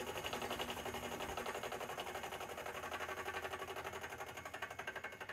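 Elliott horizontal milling machine with a large cutter on its horizontal arbor, slowly face-milling the cut end of an aluminium Kawasaki Z1 cylinder head. A steady machine sound with a rapid, even pulsing.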